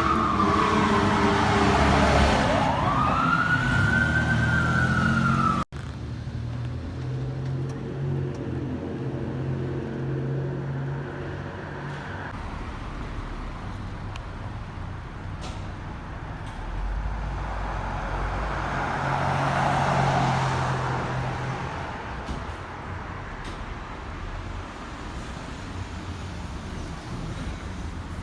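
Fire department vehicle's siren wailing, its pitch sliding down and then back up, over a low drone; it cuts off suddenly about six seconds in. After that a steady low drone continues, with a broad rushing swell that builds and fades around twenty seconds in.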